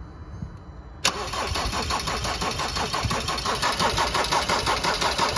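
Ford Transit van's diesel engine cranking on its starter motor without catching, starting suddenly about a second in with a rapid, even pulsing. This is a non-start after the van stood for months, which is being put down to fuel not getting through to the engine.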